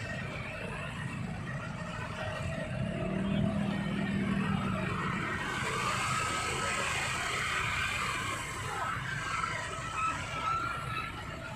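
Motorcycle and bus traffic crawling through a flooded street in a jam: engines running in a steady mixed din, swelling a little about three seconds in.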